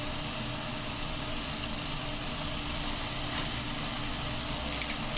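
Onion-and-tomato masala frying in a pan with a little water, a steady sizzle.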